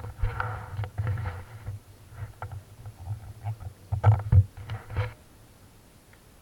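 Honda XR250 dirt bike jolting slowly over rough, grassy ground, heard as muffled, irregular low thumps and rumbling with scattered knocks. The sound stops abruptly about five seconds in.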